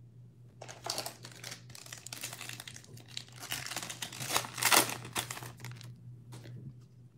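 Foil wrapper of a Panini Select basketball card pack being torn open and crinkled by hand, a series of rustles and rips with the loudest tear past the middle.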